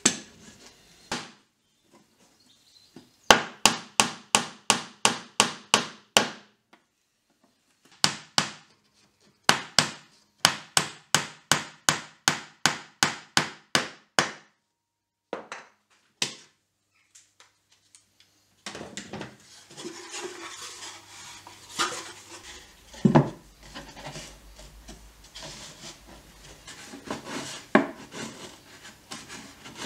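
Hammer blows on wood, in quick runs of about three or four strikes a second, driving square wooden pegs into a pallet-wood chest lid. From about 19 s a chisel pares and scrapes across the wood in a continuous rasping sound, with one louder knock a few seconds later.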